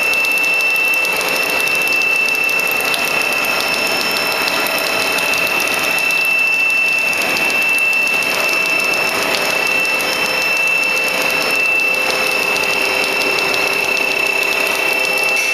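Plastic sheet-making machine running steadily: an even machine noise with a constant high whine over it.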